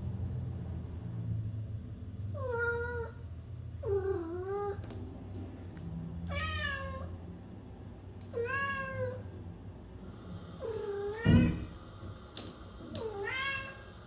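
Domestic cat meowing repeatedly, about six meows spaced roughly two seconds apart. A single sharp thump comes just after halfway, the loudest sound.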